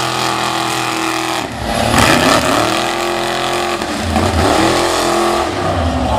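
Engines of lifted big-tire mud trucks running hard and revving as they race through a mud pit, with a louder surge about two seconds in.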